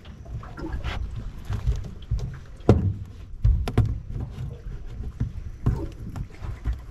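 Scattered sharp knocks, clicks and rustles from handling a mud crab and tying its claws with twine on a boat deck, the loudest a little under three seconds in. Under them runs a low rumble of wind on the microphone.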